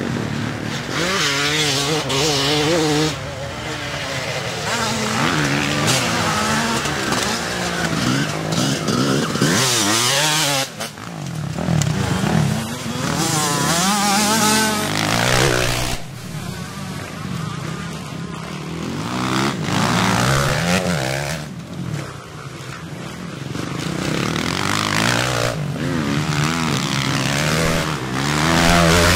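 Vintage twinshock motocross bikes racing past through a dirt corner, their engines revving up and down with the pitch rising and falling repeatedly. The sound changes abruptly a few times where the clips are cut together.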